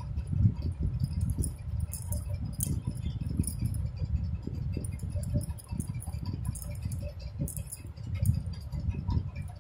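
Crocheting with a crochet hook and woolen yarn: many small, irregular clicks and rustles as stitches are worked, over a continuous low, uneven rumble of hands and handling close to the microphone.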